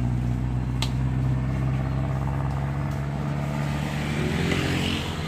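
An engine running steadily at a low, even hum, which shifts and fades near the end.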